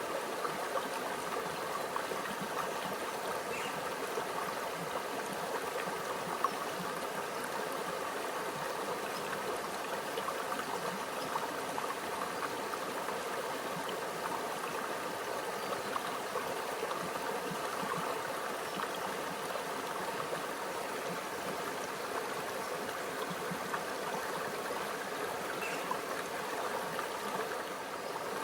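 Small stream running steadily over stones, a continuous babble and trickle of water with small gurgles.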